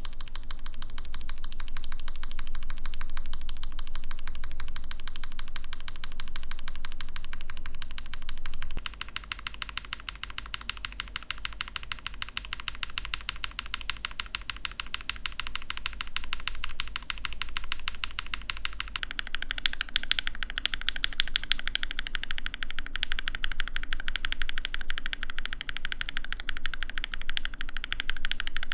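Rapid typing on a mechanical keyboard with linear switches: a dense, unbroken stream of key clacks. The sound changes character about nine seconds in, and again about nineteen seconds in, where it turns brighter and clackier.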